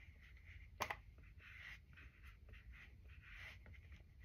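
Faint soft dabbing and rubbing of a pressed-powder puff against the face, in repeated short strokes, with one sharp click about a second in.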